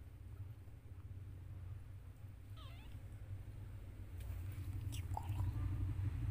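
Newborn kitten, under a week old, giving a thin high mew that wavers and falls about two and a half seconds in, and a shorter one around five seconds. A low steady rumble runs underneath and grows louder near the end.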